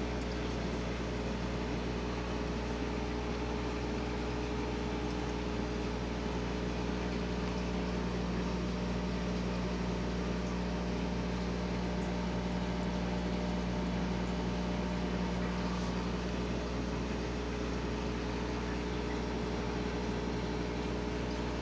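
Steady hum and hiss of running aquarium equipment: an air pump feeding a bubbling sponge filter. A low hum swells for several seconds in the middle.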